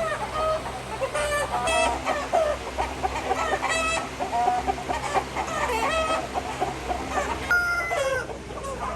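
A flock of chickens clucking and calling over one another, many short and some longer pitched calls overlapping, with a steady low hum underneath.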